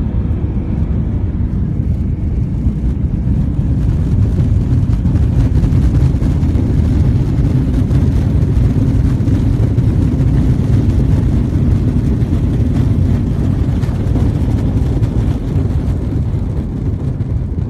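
Jet airliner's engine and rollout noise heard from inside the cabin during the landing run: a steady low roar that grows louder a few seconds in and eases near the end.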